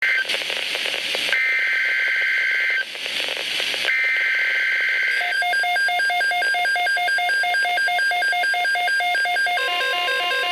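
Emergency Alert System signal on NOAA Weather Radio: for the first four seconds or so, the SAME digital header's two-tone data bursts. From about five seconds in, rapid pulsing electronic alert beeps take over, and near the end a steady single-pitched alarm tone joins them, the weather radio's warning tone.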